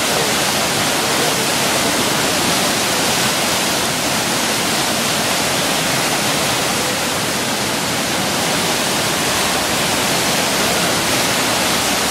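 Steady rush of churning whitewater from a standing river wave.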